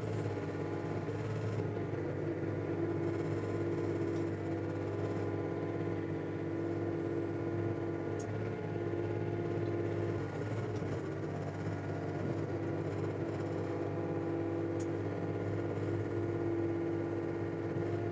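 Komatsu PC35 mini excavator's diesel engine and hydraulics running steadily while digging, a constant drone that wavers slightly a couple of times in the middle.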